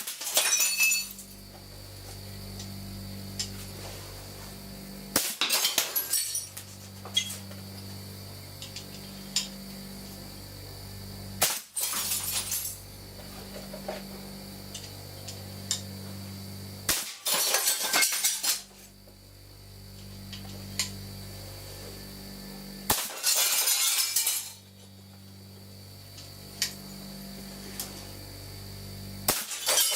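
A high-pressure air blow gun fires lead slugs at about 400 psi, six shots about six seconds apart, each followed by about a second of glass shattering and tinkling as the slug hits a glass target. An air compressor hums steadily underneath.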